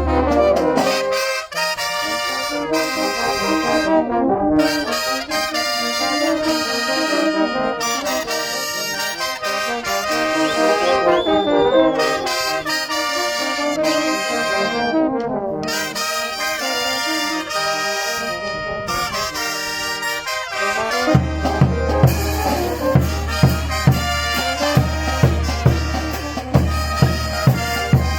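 Brass band of trumpets and trombones playing a chutas dance tune in full harmony. Near the end a bass drum comes in with steady, heavy beats.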